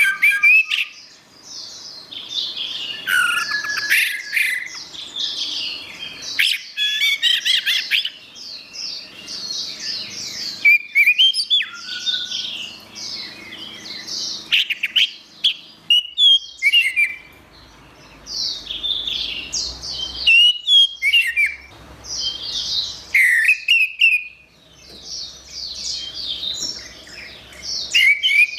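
Orange-headed thrush singing: rapid runs of varied, high whistled and chattering phrases, broken by short pauses.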